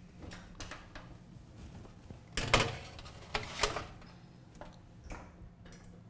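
Oven door and baking sheet handled as a tray of carrots goes into the oven: a few sharp knocks and clatters, the loudest about two and a half seconds in and another about a second later.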